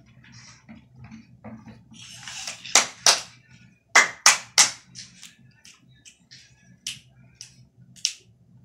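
A child's hand claps: two sharp claps, then three louder ones in quick succession about a second later, followed by lighter, scattered claps.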